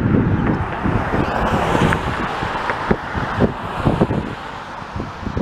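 Road traffic passing, a pickup truck's tyres hissing on the wet road, swelling to its loudest around two seconds in and then easing off. Wind buffets the microphone throughout.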